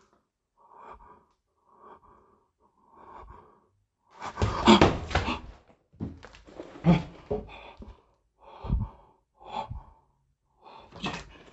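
A person's breathing close to the microphone, a short breath about once a second at first, then louder bumps and rustles from about four seconds in.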